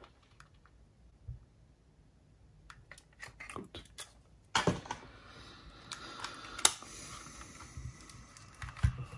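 Handling noise from a plastic portable cassette player: scattered light clicks, then a sharp snap about halfway in as its cassette door is shut, followed by a few seconds of rubbing and clicking of the plastic case as the player is turned in the hands.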